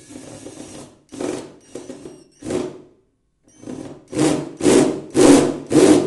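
DeWalt cordless drill/driver driving a screw into particleboard in short trigger bursts: one run of about a second, three shorter bursts, a brief pause, then five quick bursts, louder.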